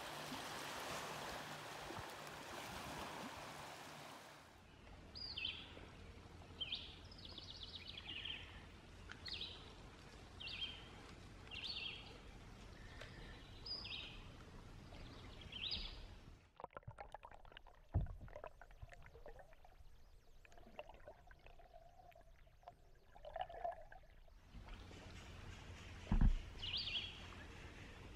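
Water and wind noise on the river, then a bird calling over and over in short high notes about once a second, followed by scattered small clicks and two sharp knocks, like a paddle striking the kayak hull.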